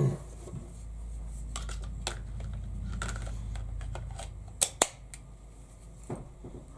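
Light plastic clicks and handling noise from setting up equipment, with two sharp clicks close together a little past the middle, over a low hum that fades out about two-thirds of the way in.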